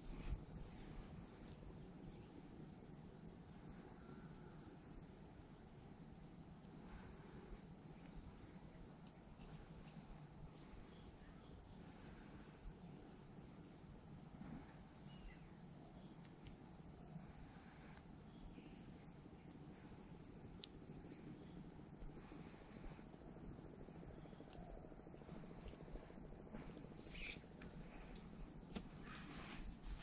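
Steady chorus of insects in the surrounding vegetation: a continuous high, unbroken buzz that holds at the same pitch throughout, faint under a low background hush.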